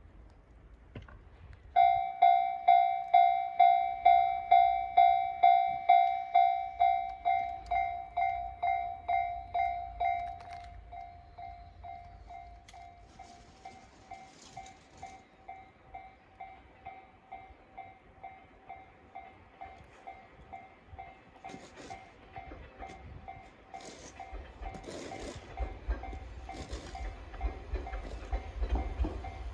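Japanese railway level-crossing warning bell starts about two seconds in, a steady repeated ding about twice a second, loud at first and quieter after about ten seconds. Near the end the rumble of an approaching electric train builds under it.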